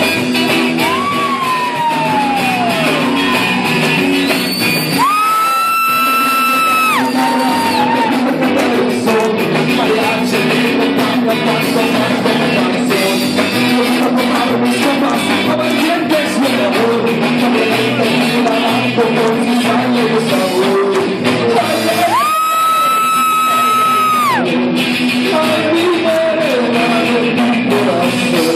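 Live rock band playing loud with drum kit, guitars, bass and hand drums. Two long high notes are held over the band, about five seconds in and again near the three-quarter mark.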